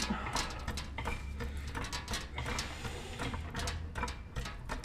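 Light, irregular clicks and rattles of a thin aluminum undertray being handled and pushed into place under a car, with heavy breathing through a dust mask.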